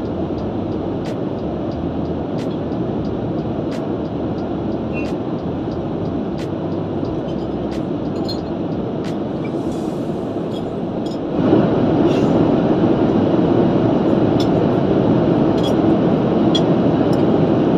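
Steady airliner cabin noise of a Boeing 787-9 in flight, an even rushing hum that steps up louder about two-thirds of the way through. Faint clicks of cutlery on plates now and then.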